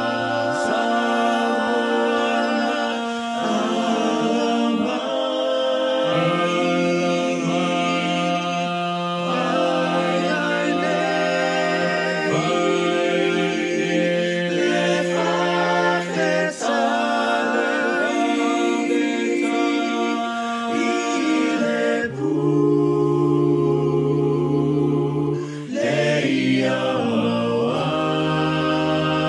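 A cappella vocal music: several voices singing in harmony, with long held notes and no instruments.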